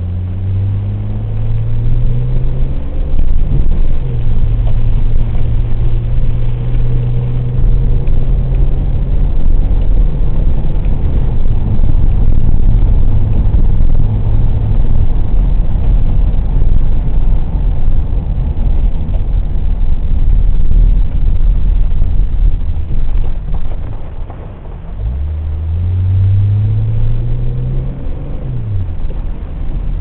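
Car engine heard from inside the cabin, accelerating: its pitch climbs, drops at a gearshift about three seconds in, then holds steady at speed under heavy road and tyre noise from the wet road surface. Near the end the engine eases off, then pulls up again through another shift.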